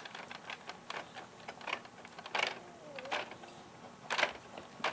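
Irregular plastic clicks and knocks from a toy crane truck's boom being lowered and handled, with a few louder knocks.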